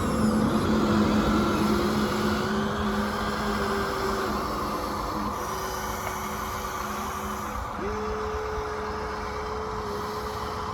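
Electric motors and gearboxes of radio-controlled toy construction machines whining as they work, over a steady hum. The whine rises and settles, stops about three quarters of the way through, and starts again at a higher pitch.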